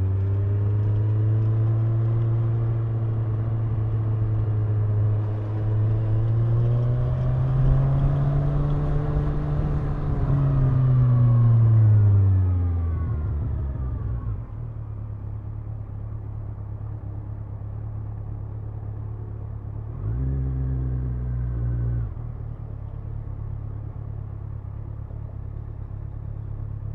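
Kawasaki Ninja 1000's inline-four engine running, its pitch rising and then falling away to a steady idle about halfway through. Near the end the revs step up briefly for about two seconds and drop back to idle.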